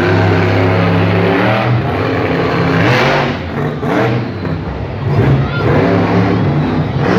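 Monster truck engine revving hard, its pitch rising and falling several times as the throttle is worked through a freestyle run.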